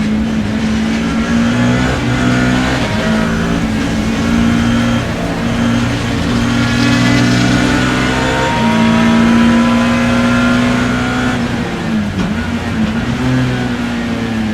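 BMW E30 M3's S14 four-cylinder racing engine heard from inside the car, running hard at high revs, its pitch stepping between gears and dipping briefly about twelve seconds in before picking up again.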